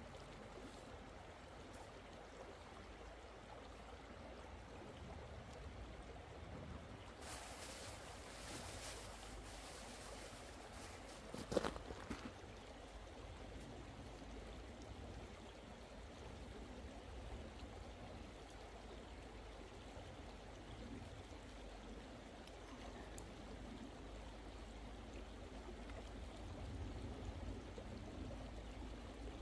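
Steady rush of a shallow mountain river running over stones. A short rustle comes about a quarter of the way in, and a single sharp knock, the loudest sound, just before the middle.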